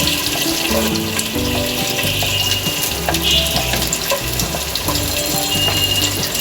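Chopped onion and garlic frying in hot butter and oil in a pan: a steady sizzle, with background music playing over it.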